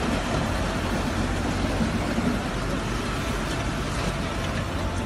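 Fast-flowing floodwater rushing, a steady loud noise with a deep rumble underneath.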